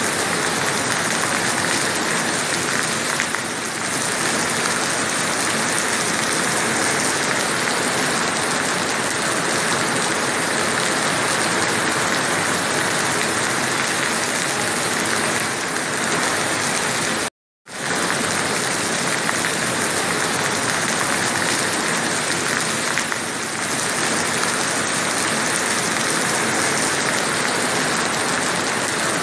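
Rain falling steadily, a constant even hiss. About two-thirds of the way through the sound cuts out completely for a fraction of a second, then returns unchanged.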